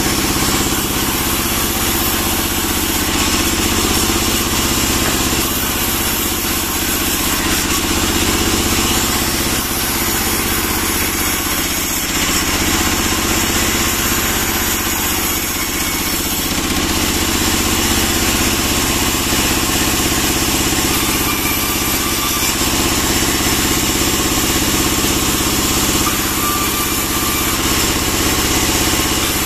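A sawmill band saw running steadily, its drive humming while pine slabs and boards are fed through the blade.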